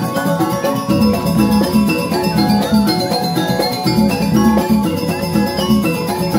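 Balinese gamelan music: mallet-struck keyed instruments play quick repeated notes over kendang hand drums, in a steady beat.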